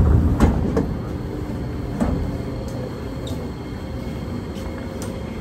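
Passenger doors of a Kawasaki–Nippon Sharyo C751B metro train and the platform screen doors sliding open at a station stop: a few sharp clunks in the first second and another about two seconds in, then the steady hum of the stopped train.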